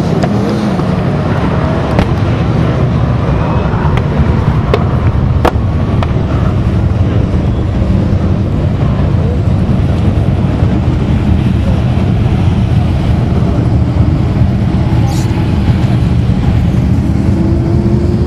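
A field of winged sprint cars racing on a dirt oval, their methanol-burning V8 engines running together in a steady, dense din, with a few sharp cracks in the first six seconds.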